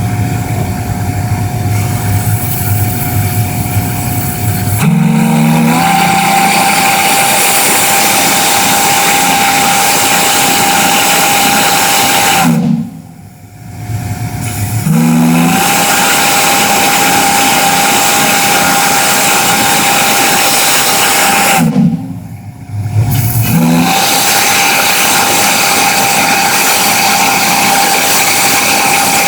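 A 12-inch Star Brass three-note single-bell chime whistle blowing. For about the first five seconds it sounds softer and steadier. Then come three long, loud blasts of about seven seconds each, separated by short breaks, each one a held chime tone with a strong hiss.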